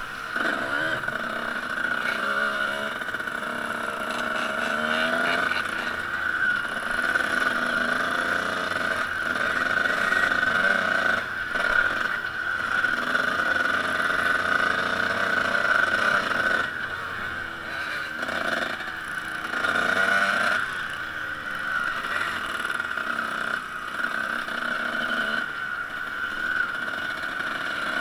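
Small off-road motorcycle engine running along a dirt track, its note rising and falling every few seconds as the throttle opens and closes, heard from a camera mounted on the bike.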